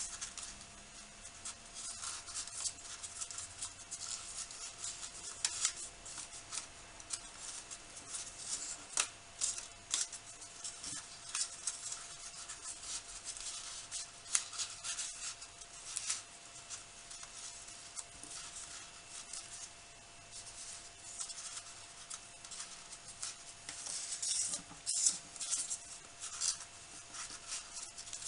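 Sheets of origami paper rustling and crinkling in close handling as folded paper modules are slid into one another's pockets, with many quick, irregular crackles.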